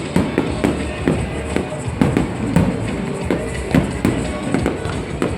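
Fireworks show: a quick series of firework bangs and crackles, several a second, over loud music.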